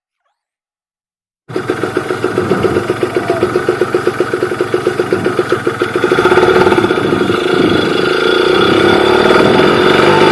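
Kawasaki Ninja 150 RR's two-stroke single-cylinder engine, on its stock exhaust, running with a rapid pulsing beat that comes in suddenly, then smooths out and gets louder about six seconds in.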